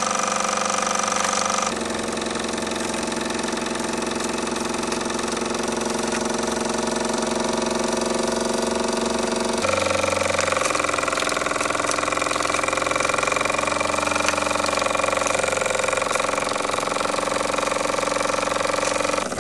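Mamod SP1 toy steam engine running smoothly on live steam, a continuous even whirring with several steady tones. Its tone shifts abruptly about two seconds and ten seconds in.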